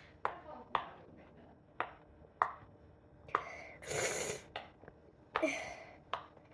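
Silicone pop-it fidget bubbles being pressed: a series of sharp, separate pops at an uneven pace, with a brief rustling hiss about four seconds in.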